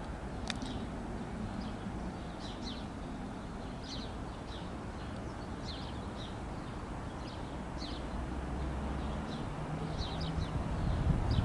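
Small birds chirping in short repeated calls over the low hum of a pair of approaching Class 37 diesel locomotives, whose English Electric V12 engines grow louder near the end.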